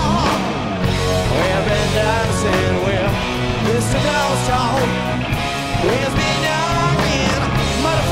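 Rock band playing with electric guitars, drums and a singer.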